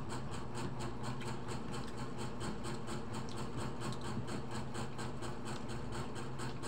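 A steady machine hum with an even, rapid pulsing of about five beats a second, like a small motor running.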